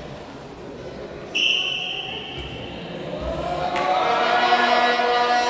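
A referee's whistle sounds once for about a second, a little over a second in, over gym noise with a bouncing basketball. Then a crowd of voices swells into a sustained chant that grows loud toward the end.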